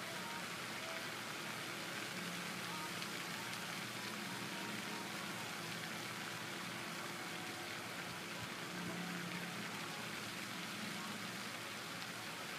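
Pond aerator fountain splashing: a steady, even hiss of falling water, with a faint low hum under it.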